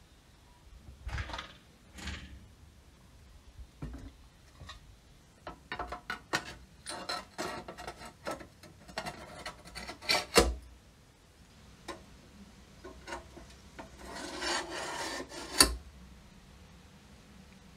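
Hand work on a vintage railway lamp under restoration: irregular rubbing and scraping strokes mixed with sharp clicks. A sharp knock comes about ten seconds in, a longer rubbing stretch follows near the end, and the loudest click ends it.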